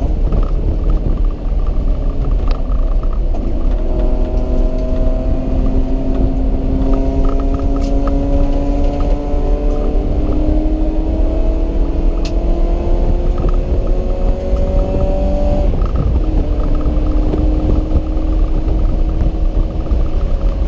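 Honda CRX engine pulling hard under a heavy low rumble, its pitch climbing slowly for about ten seconds, then dropping abruptly about two-thirds of the way through and running steadier.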